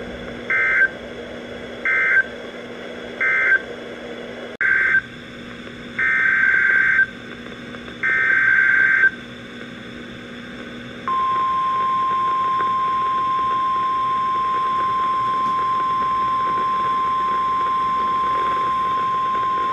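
NOAA Weather Radio alert signalling. Three short screeching SAME data bursts mark the end of one warning. Longer data bursts open the next alert, then the steady 1050 Hz warning alarm tone begins about eleven seconds in and holds for about nine seconds, over receiver hiss.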